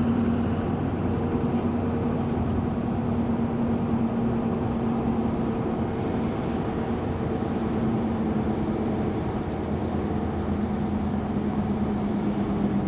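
Steady road and engine drone inside a moving truck's cab, a constant low hum over tyre noise.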